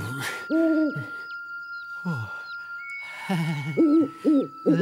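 Wordless vocal sounds from a cartoon character's voice: a rising-and-falling hum about half a second in, a short falling grunt about two seconds in, then a quick run of wobbling syllables near the end, over a steady high tone.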